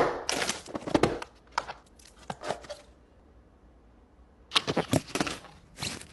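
Phone packaging being handled and opened: rustling and crinkling in irregular bursts for about three seconds, a short pause, then two more bursts near the end.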